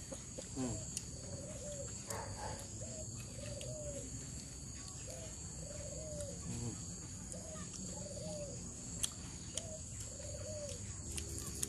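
A bird calling over and over: a long series of short rising-and-falling notes, roughly one a second.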